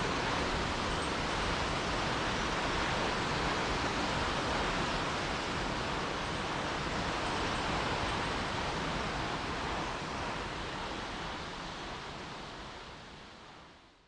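Steady rush of the 秘奥の滝 waterfall on the upper Tokachi River, water pounding onto huge boulders at its foot, fading out over the last few seconds.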